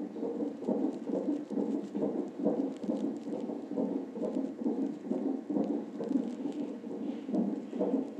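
Fetal heartbeat played through the Doppler speaker of a GE Corometrics fetal monitor: an even, rhythmic pulsing at a little over two beats a second. The display reads about 135 beats a minute, a normal fetal heart rate.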